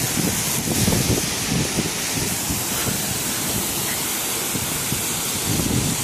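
Steady rushing of a waterfall, with wind buffeting the microphone.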